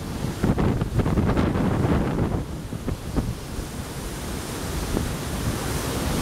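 Typhoon wind buffeting the microphone in gusts, over the steady rush of a flood-swollen river.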